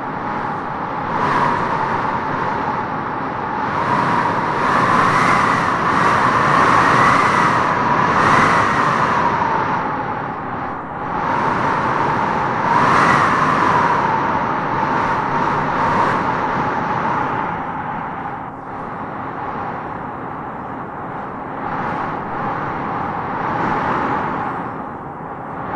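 Strong wind blowing in gusts with a howling whistle that rises in pitch as each gust swells, several times in a row in the first half and once more in the middle, then eases off.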